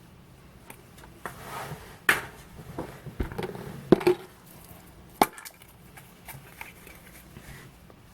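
Hands opening a surprise egg: a brief rustle, then a handful of sharp cracks and clicks, the loudest about two, four and five seconds in.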